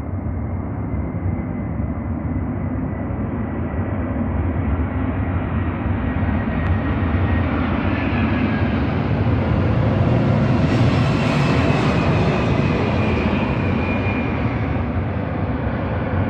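Boeing 767-300ER airliner's twin jet engines on landing approach, passing low overhead. The rumble builds to its loudest about two-thirds of the way through, and a whine drops in pitch as the plane goes past.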